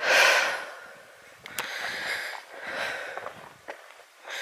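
A walker's heavy breathing close to the microphone on a steep downhill path, about three breaths, the first the loudest, with a couple of sharp clicks in between.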